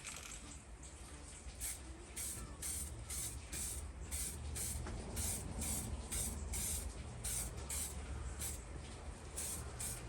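Aerosol spray-paint can sprayed in a run of short hissing bursts, about two to three a second, starting a second or two in.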